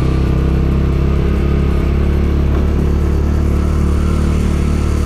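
Bajaj Dominar 250's single-cylinder engine running steadily as the motorcycle rolls slowly along.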